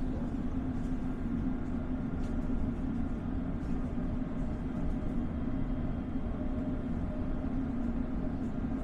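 Steady low hum inside a stationary London Underground Hammersmith & City line train, its on-board equipment running while it waits at the platform, with a few faint ticks.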